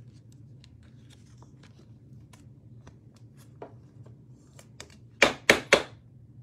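Plastic handling noise: light scattered clicks and rustles as a trading card in a soft sleeve is slid into a rigid plastic toploader. About five seconds in come three sharp, loud clacks in quick succession.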